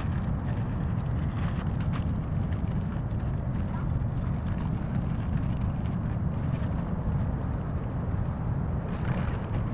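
Steady low wind rumble buffeting the microphone in a sea breeze.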